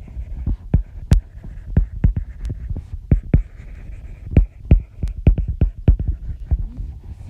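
Irregular sharp taps and knocks, two or three a second, each with a dull low thump, over a steady low hum.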